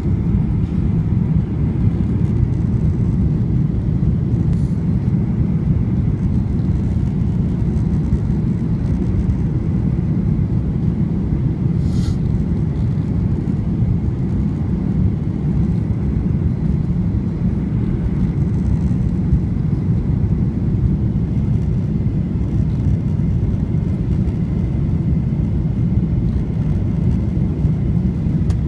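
Steady low cabin rumble of a Boeing 737-800 descending on approach: engine and airflow noise heard from a window seat over the wing, with a faint steady whine. One brief click about twelve seconds in.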